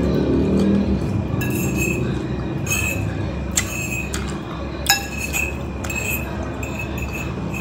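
Metal cutlery clinking and scraping against a ceramic bowl while eating: a string of light clinks with a short ringing note, the two sharpest about three and a half and five seconds in.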